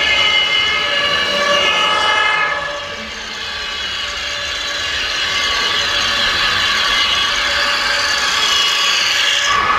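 Electronic sound from radio-controlled model fire trucks' sound modules: several steady tones held together, horn-like, shifting to a new set of pitches about two and a half seconds in.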